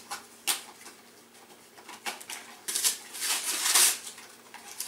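Christmas wrapping paper being torn and crumpled off a present: a short rip about half a second in, then several longer rustling tears in the second half with quiet gaps between.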